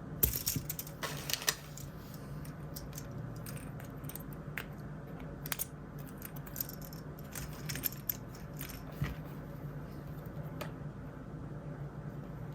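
Blind-bag packaging crinkling and small plastic toy pieces clicking as they are handled: a dense burst of crinkling in the first second or two, then scattered clicks and rustles. A steady low hum sits underneath.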